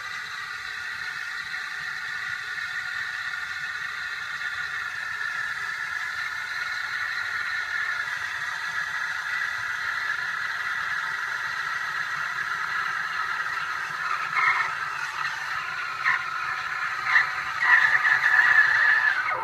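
Steam from a La Pavoni Europiccola's single-hole steam wand hissing steadily into a pitcher of milk as it is steamed and frothed. The hiss slowly grows louder, with a few brief louder spurts in the second half and a louder, higher screech over the last couple of seconds before it cuts off suddenly as the steam knob is closed.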